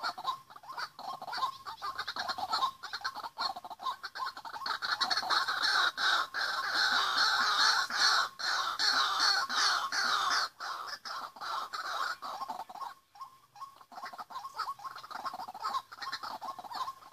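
White-breasted waterhens calling: a fast, dense run of repeated notes that grows loudest in the middle and thins out after about twelve seconds.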